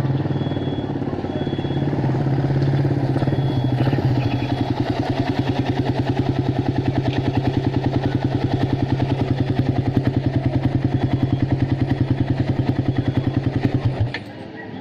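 Small motorcycle engine fitted with a 28mm roundslide carburetor running at idle. It settles into an even, rapid pulsing beat about four seconds in, then stops abruptly near the end as the engine is shut off.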